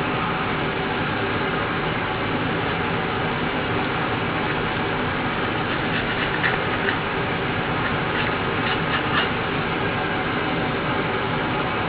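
Steady rushing noise throughout, with a few light clicks and scrapes about six and nine seconds in as a small metal tool picks old foam surround residue off a woofer's frame.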